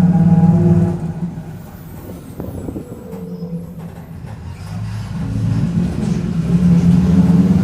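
Mercedes-Benz OF-1722M bus drivetrain with a pitched droning differential. The drone is loud at first, fades away about a second in, and builds back up from about five seconds in.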